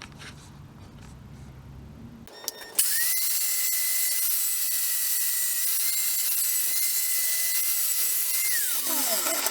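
Electric angle grinder with an 80-grit flap disc starting up about three seconds in. Its motor whine rises quickly to a steady high pitch with a grinding hiss as it sands down the steel hammer head, then falls away in pitch as it winds down near the end. Before it starts there are a few light handling clicks.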